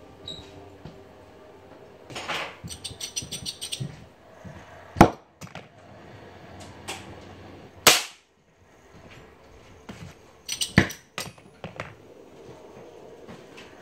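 Metal knocks and clicks from hands and tools working on the refrigerator's copper lines: a quick rattling run of clicks about two seconds in, then three single sharp knocks spaced a few seconds apart.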